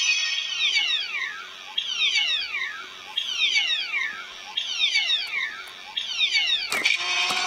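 CSM Altering transformation-belt toy playing its transformation standby sound through its speaker. A group of falling electronic sweeps repeats about every 1.3 seconds, and two sharp clicks near the end are followed by a steady electronic tone.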